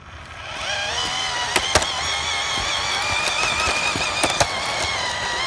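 An engine-like revving sound that rises in pitch over about the first second, then holds steady with a slight wobble. A few sharp clicks sound over it.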